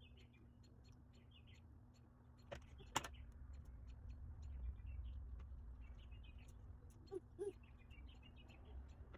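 Faint backyard ambience: small birds chirping on and off over a low rumble. A single sharp click comes about three seconds in, and two short pitched calls come about seven seconds in.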